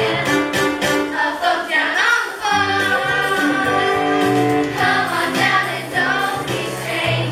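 Several voices singing together in a musical number over instrumental accompaniment.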